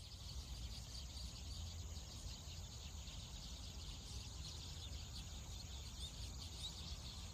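Many birds calling all at once, a dense, unbroken high-pitched chatter of small calls that runs on evenly without a break.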